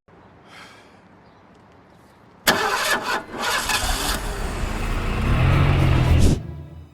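Car engine starting with a sudden loud burst about two and a half seconds in, growing louder, then cutting off abruptly.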